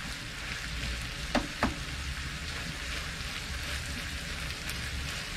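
Lamb mince and vegetables sizzling steadily in a frying pan as they are stirred with a wooden spoon, with two short clicks about a second and a half in.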